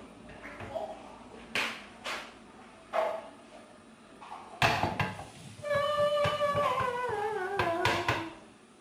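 A plate and a spatula knocking and scraping against a frying pan while a torta is turned out of the pan. Several sharp knocks come in the first five seconds, the loudest just before the middle. Then a long vocal sound slides slowly down in pitch for about two and a half seconds.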